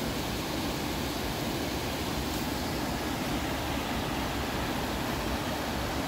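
Fast-flowing mountain creek rushing over rocks: a steady, even rush of water.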